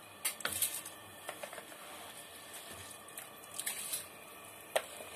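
Soaked rice sliding from a plastic bowl into a steel pot of water, a wooden spoon scraping it out and then stirring the rice in the pot, with soft wet splashes and scrapes. There is one sharp knock near the end.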